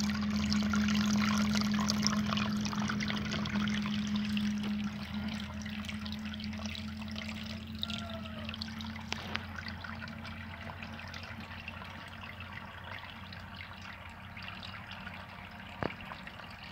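Water trickling and splashing out of the holes in a pipe fitted beside a buried earthen pot fish trap, falling into a shallow puddle. It fades slowly, with a steady low hum during the first few seconds.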